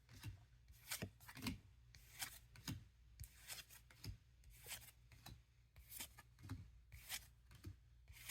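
Faint, irregular flicks and slides of trading cards being flipped through one at a time from an opened booster pack.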